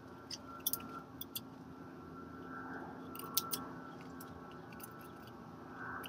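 Faint scattered clicks and light scratches of a pencil marking hole positions through a mounting bracket held against a brick wall, with a cluster of clicks a little past three seconds in, over a low steady background hum.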